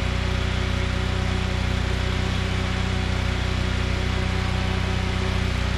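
An engine running steadily at a constant speed, a continuous even hum.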